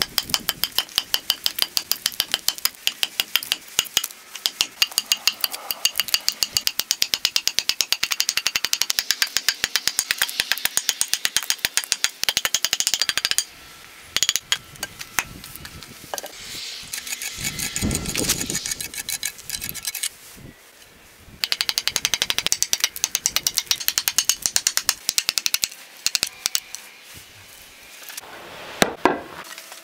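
Hatchet chopping an ash handle blank, a quick run of sharp light strikes several a second as chips are hewn off. The strikes stop partway through, with a duller thud in the pause, then start again.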